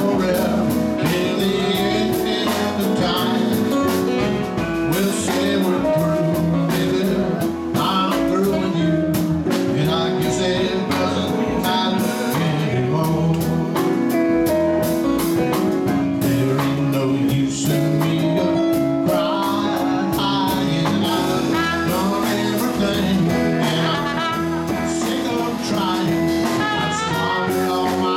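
Live blues band playing: saxophone over electric guitar, Roland keyboard and drums.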